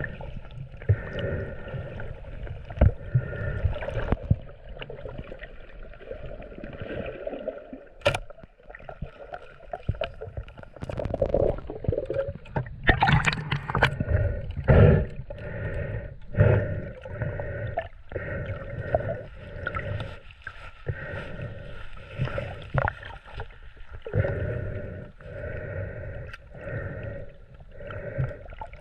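Water sloshing and gurgling around the camera, muffled, with many irregular knocks and splashes.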